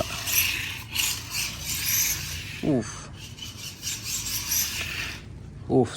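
Tiny WLtoys K989 1/28-scale RC rally car driving fast and drifting, its small tyres scrubbing and skidding on the terrace floor with a rasping noise that swells and fades.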